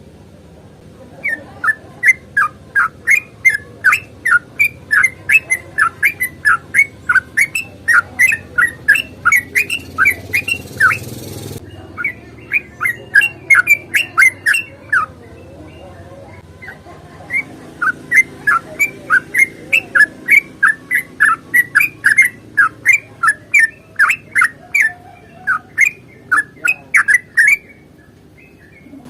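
Yellow-vented bulbul (trucukan) singing vigorously: long runs of quick, short whistled notes, about three a second, broken by a pause of a couple of seconds midway.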